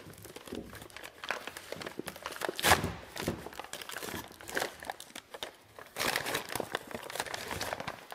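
Brown wrapping paper crinkling and rustling in the hands as a packaged part is unwrapped. It goes in fits and starts, with the loudest crackle about three seconds in and steady crinkling again near the end.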